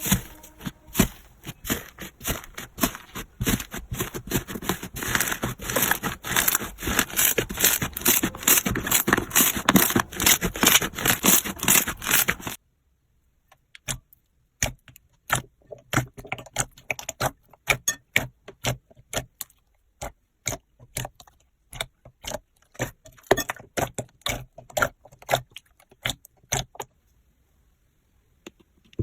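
Slime being squeezed and worked by hand, giving dense, rapid crackling clicks and pops. About twelve seconds in it cuts abruptly to a quieter, sparser clicking that stops shortly before the end.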